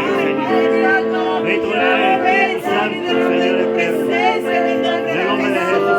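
Worship music: held keyboard chords that change every second or two, with several voices over them.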